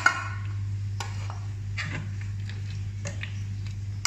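A few light, scattered taps and clicks of a wire-mesh strainer against a stainless steel sink and pot as drained instant noodles are handled and tipped back into the pot, over a steady low hum.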